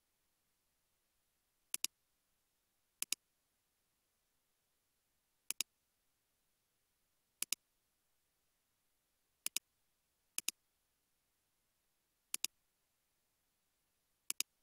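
Computer mouse button clicking about eight times at irregular intervals of one to two seconds or so, each click a quick press-and-release pair of ticks.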